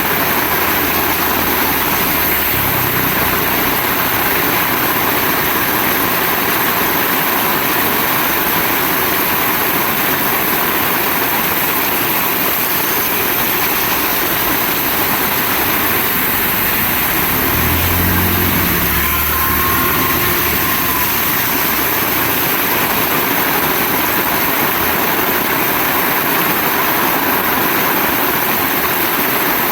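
Heavy rain falling in a steady, dense hiss. A low rumble swells briefly a little past halfway.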